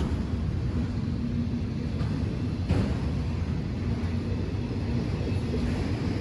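Train running past: a steady low rumble with a faint hum, and one sharp knock a little under three seconds in.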